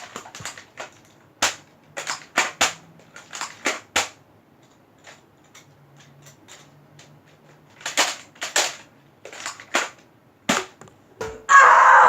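Nerf Zombie Strike foam-dart blaster being primed and fired again and again: sharp plastic clicks and pops, some in quick pairs or clusters. A louder, rougher burst of noise comes near the end.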